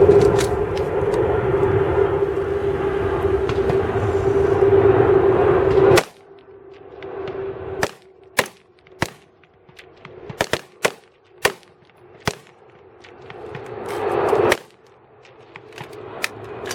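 Rifles firing on a highpower firing line: a dozen or so sharp reports, irregularly spaced and overlapping from several shooters, during a rapid-fire string. For the first six seconds they are covered by a loud, steady rushing noise with a constant hum, which cuts off suddenly.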